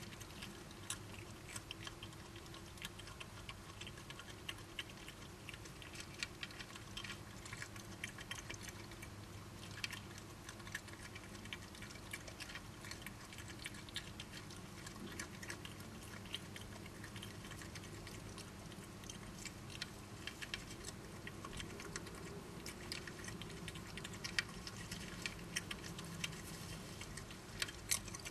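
Two badgers feeding: many small irregular clicks and crunches of chewing, over a steady low hum.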